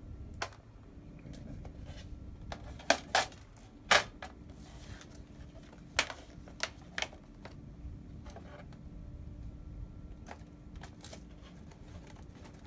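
Acer Chromebook's plastic bottom cover and chassis being handled and laid back together: a scattering of sharp plastic clicks and knocks, the loudest about three to four seconds in.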